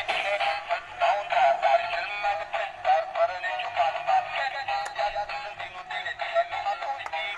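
Thin electronic music with synthesized singing, played through a light-up toy car's small built-in speaker, with almost no bass; it plays on steadily.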